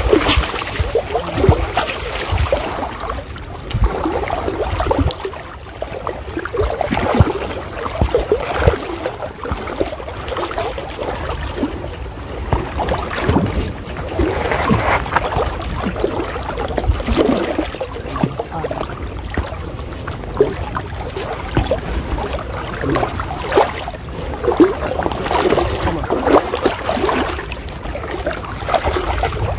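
Water sloshing and splashing in irregular surges as people wade through waist-deep floodwater, with wind rumbling on the microphone.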